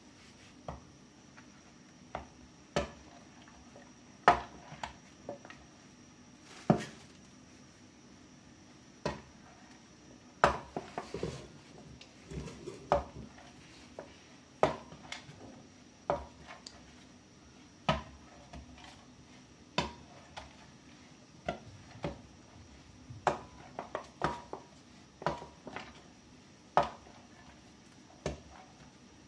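A jar knocking and tapping on a floured cutting board as it is used to roll and press out rounds of dough: irregular sharp knocks about every one to two seconds, a few in quick clusters, over a faint steady hum.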